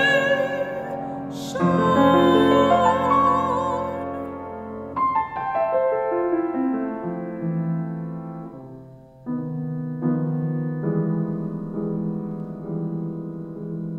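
A mezzo-soprano sings a held line with vibrato over piano accompaniment. Her voice stops about five seconds in. The piano then carries on alone with slow, sustained chords, a new chord struck roughly every one and a half seconds.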